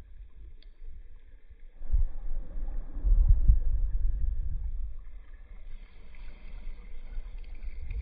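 Calm sea water lapping at the shore, overlaid by wind buffeting the microphone as a low rumble that starts about two seconds in and is loudest just after.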